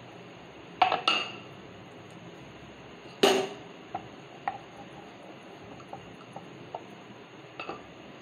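Scattered knocks and light clicks from a wooden chapati board as wheat dough is pressed flat by hand, over a steady hiss. The loudest knock, with a short ring, comes about three seconds in.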